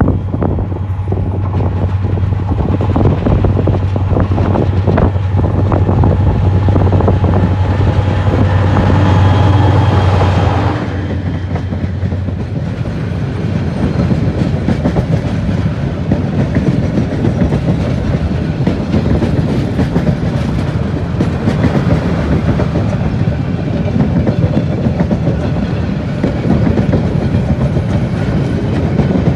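Diesel-hauled passenger train passing close by. The locomotive's engine drone is loud until it cuts off about ten seconds in, and then the coaches roll past with a steady rumble and the clatter of wheels on the rails.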